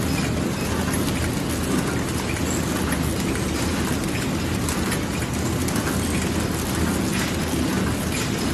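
Horizontal flow-wrap packaging machine running steadily: a constant mechanical clatter with dense, rapid ticking.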